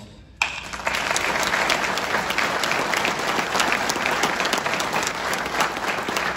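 Audience applause, starting suddenly about half a second in and holding steady, many hands clapping close by.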